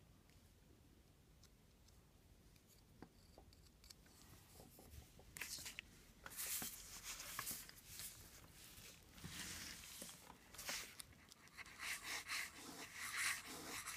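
Fountain pen nib scratching across paper in irregular strokes and loops, test-writing to see whether the freshly straightened, bent nib now lays down ink. The scratching starts about five seconds in, after a near-silent start.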